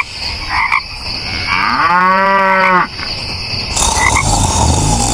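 Animal calls over a steady noisy background: short calls recurring every few seconds, and one long, low, pitched call lasting about a second, from about two seconds in.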